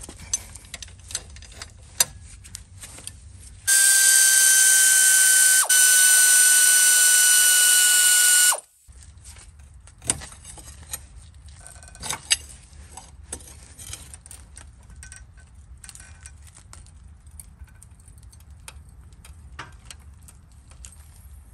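Hand ratchet wrench clicking in short runs as the brake caliper and caliper bracket bolts are worked loose, with metal tool knocks. About four seconds in, a loud steady whine starts and cuts off sharply about five seconds later.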